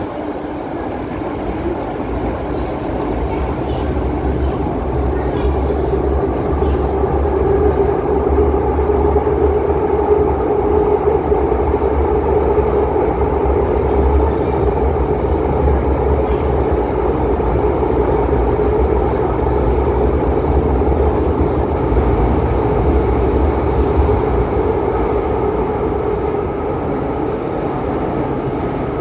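Interior running noise of a Madrid Metro 9400-series train under way: a steady rumble with a low hum. It grows louder over the first several seconds, holds steady, then eases slightly near the end.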